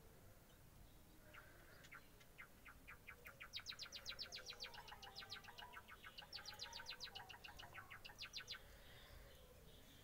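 Budgerigar chick giving a faint, fast series of short high chirps. The chirps start about a second and a half in, speed up to about six a second, break off briefly midway, and stop shortly before the end.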